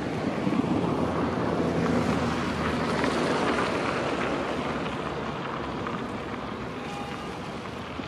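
Wind buffeting the microphone over the wash of water along a rocky shore, a steady rushing noise that eases off slightly toward the end.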